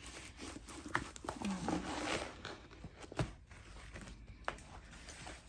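Paper and plastic rustling and light tapping as a rolled diamond-painting canvas is handled and smoothed flat on a table, with a couple of sharp knocks, about a second in and about three seconds in.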